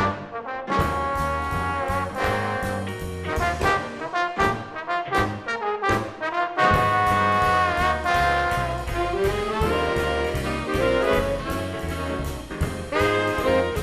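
A big band playing an instrumental passage led by its brass section of trumpets and trombones. Short, punchy ensemble hits for about the first six seconds give way to fuller, held chords.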